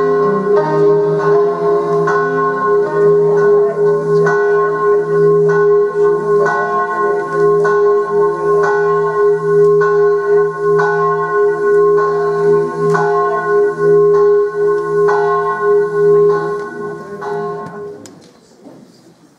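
Bells ringing, struck about twice a second over a lasting hum, fading out near the end.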